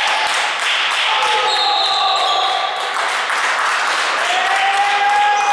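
A basketball being dribbled on a hardwood gym floor, knocking again and again and echoing in the hall, with drawn-out squeaking tones and voices.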